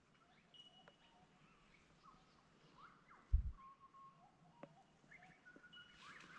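Several birds calling at once: short whistles, rising notes and a few held tones, heard faintly. A brief low thump comes about halfway through.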